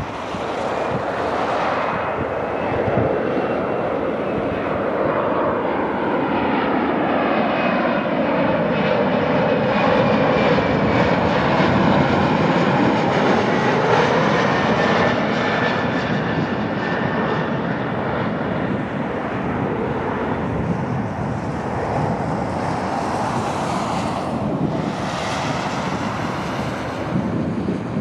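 Embraer E175 regional jet on final approach with gear down, passing low and close: the roar and whine of its twin GE CF34 turbofans build to a peak about halfway through, the whine shifting in pitch as it goes by, then ease off as it heads down the runway.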